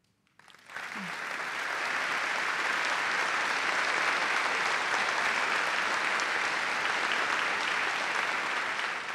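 Audience applauding, starting about half a second in and swelling over the next second or two, then holding steady.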